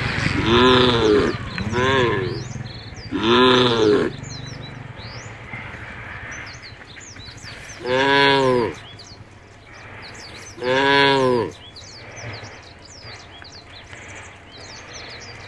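Cattle mooing: five short calls, each rising and falling in pitch, three in quick succession at the start and two more spaced out later. Birds chirp steadily in the background.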